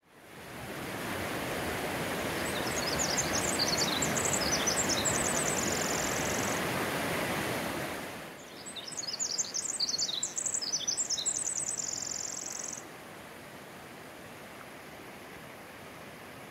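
Rushing flowing water, like a creek, with a songbird singing twice over it: a quick run of high chirps ending in a fast trill. About halfway through, the water noise drops away sharply, leaving a quieter steady outdoor hiss after the second song.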